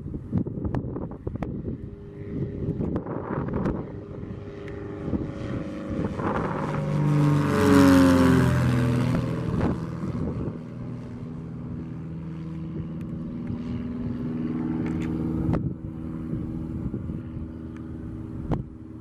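A single-engine propeller plane climbing out after takeoff and passing overhead. The engine and propeller drone builds, is loudest about eight seconds in with its pitch falling as it passes, then eases into a steadier, fainter drone as it climbs away.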